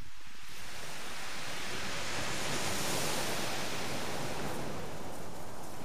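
Sea surf on a shingle beach: a wave washing in, its hiss swelling to a peak about three seconds in and then easing off.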